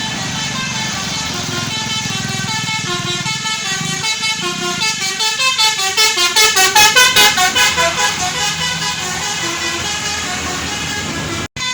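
Tour bus multi-tone 'telolet' horn playing a quick tune of short stepped notes, swelling louder toward the middle and then fading back.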